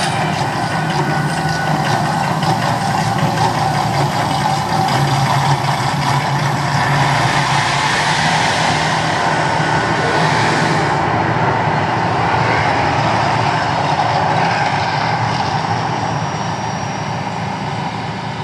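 The Mirage volcano show's eruption effects: a loud, steady rushing roar. The high hiss cuts off about eleven seconds in, and the roar slowly fades near the end.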